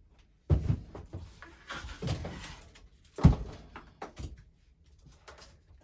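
Dry firewood logs being pulled out and handled, knocking and clunking against each other in a series of wooden thuds, the sharpest and loudest about three seconds in.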